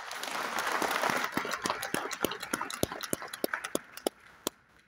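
Audience applauding: a dense burst of clapping that thins into a few separate claps and dies away near the end.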